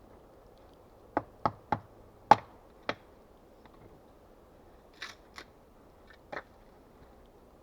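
A series of sharp knocks: five in quick succession starting about a second in, the fourth the loudest, then three lighter ones a few seconds later.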